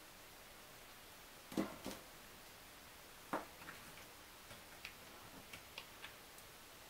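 Light taps and small ticks of metal tweezers and small laser-cut wooden pieces being handled and fitted into a wooden model: a couple of soft knocks, then a run of faint quick ticks.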